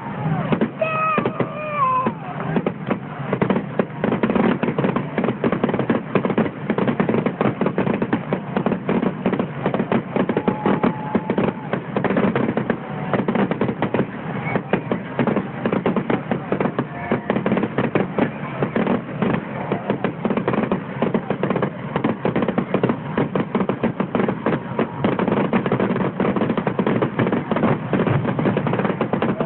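Fireworks going off in a dense, unbroken barrage of bangs and crackles, many a second.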